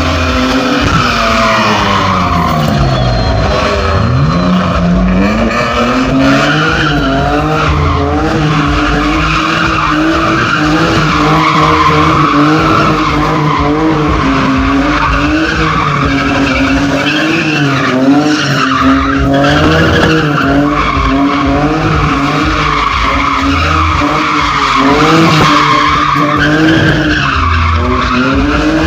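A drifting car's engine revving hard, its pitch rising and falling over and over, with a deep drop and climb about four seconds in. Throughout, the rear tyres screech as they spin and slide.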